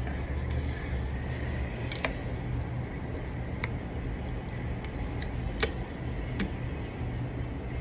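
Steady low rumble of road traffic, with four sharp clicks spread through it and a short hiss about a second and a half in.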